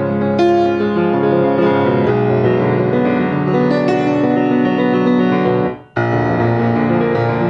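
Yamaha C-7 grand piano, tuned to A=443 Hz, played solo in a dense flow of sustained chords and runs; the sound breaks off briefly just before six seconds in, then the playing resumes.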